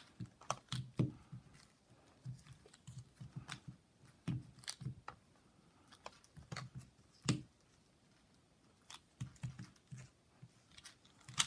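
Rubik's cube being turned by hand during a solve: irregular quick plastic clicks and clacks of the layers turning, with a short pause about two thirds of the way through.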